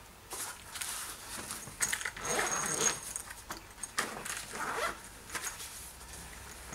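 Fabric carry case of a lance sprayer being handled and opened: a series of short scraping, rustling noises from the cloth and its fastenings.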